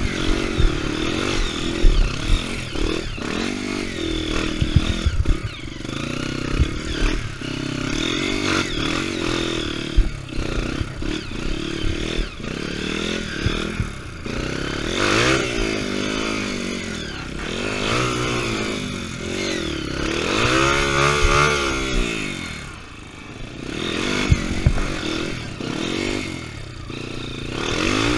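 Off-road trail motorcycle engine revving up and down repeatedly as it is ridden over rough ground, with clattering knocks from the bike.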